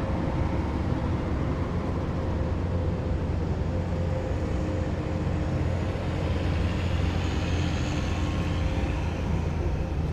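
Heavy military vehicles driving past with a steady, deep engine rumble. A higher whine swells in the second half as a vehicle comes closer.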